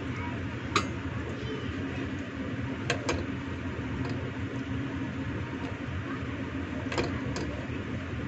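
Silicone spatula scraping the last of a stir-fry out of a nonstick cooking pot onto a plate, with several sharp taps of the spatula on the pot, a pair near three seconds and another pair near seven seconds, over a steady background hum.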